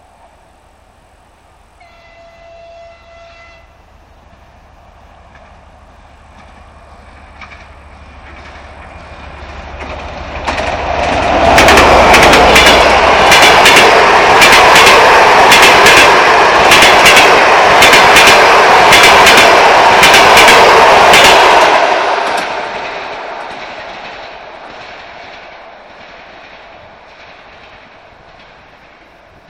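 A TEP70 diesel passenger locomotive sounds its horn once, briefly and from far off, then approaches with a rising rumble. It passes at speed with its train of coaches: loud clickety-clack of wheels over rail joints for about ten seconds, then fading as the train recedes.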